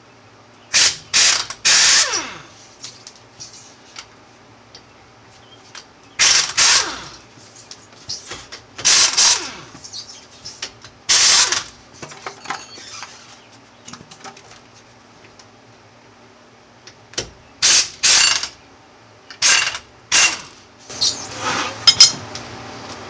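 Air impact wrench hammering the lug nuts off a car wheel, in a series of short bursts of a second or less, with pauses between as it moves from nut to nut.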